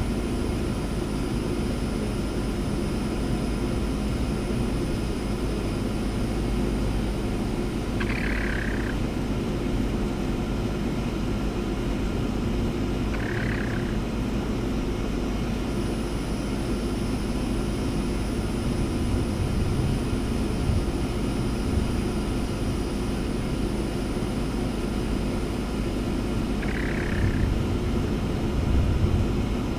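A young hen makes three short, soft calls, well spaced apart, while resting. Under them runs a steady low hum, the loudest sound throughout.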